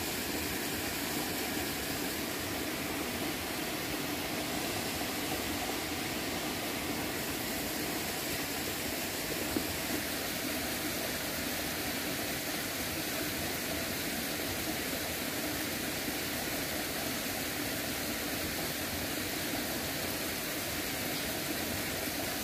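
Steady rushing of a small river's moderate current: an even noise of flowing water that does not change.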